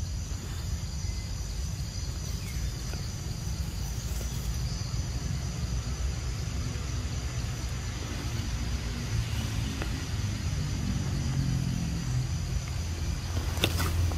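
Low, steady motor rumble that grows louder in the second half, under a steady high insect buzz, with a single sharp click near the end.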